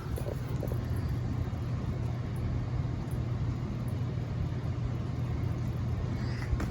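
42-inch ceiling fan running at its single speed, its motor giving a steady low hum.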